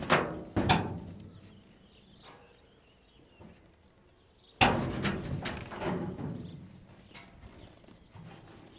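Sharp knocks during hands-on repair work: two close together at the start and a louder one about four and a half seconds in, each ringing and dying away over a second or so, then a few faint ticks near the end.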